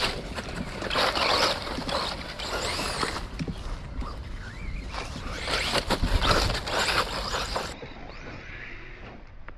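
LC Racing EMB-WRC RC rally car, running a 4500kv brushless motor on 3S in rear-wheel drive, driven hard across grass and dirt: two loud passes of motor whine and tyre and gravel hiss, the first about a second in, the second from about five seconds in to nearly eight.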